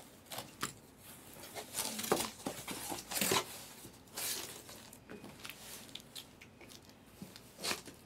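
Cardboard Panini shipping case being handled and opened: irregular scrapes, rustles and short tearing sounds of cardboard and tape, strongest about two and three seconds in.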